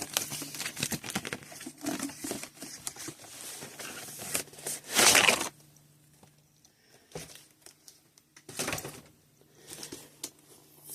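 Packaging crinkling and rustling as it is handled: a dense run of crinkles for about five seconds, loudest about halfway through, then a few scattered rustles.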